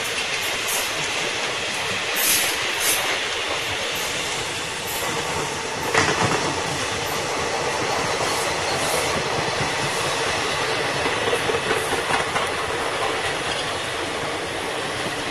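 Indian Railways ICF passenger coaches rolling past at speed: a steady rumble of steel wheels on rail, with sharp clacks as the wheels cross rail joints, the loudest about six seconds in.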